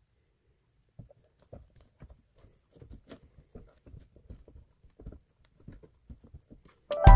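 Soft, irregular taps and knocks of fingers pressing and patting a lump of clay onto the aluminium head of a miniature pottery wheel. Loud music with piano-like notes and drum hits cuts in suddenly near the end.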